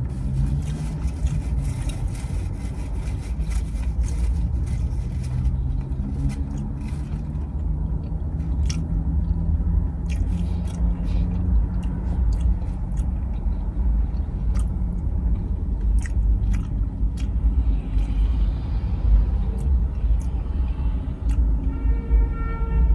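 Close-up chewing and biting of a White Castle fish sandwich with a mozzarella stick inside, with scattered sharp crunchy clicks, over a steady low rumble.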